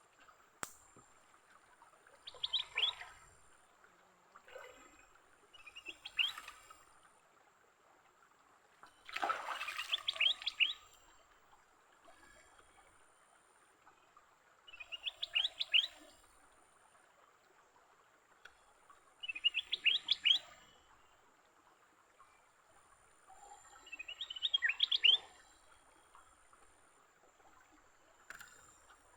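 A bird calling in short bursts of quick, high, falling notes, repeated about every four to five seconds, over a faint steady high-pitched whine.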